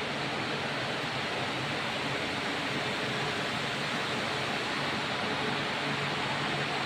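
Steady industrial machinery noise, an even rush with a faint low hum held under it.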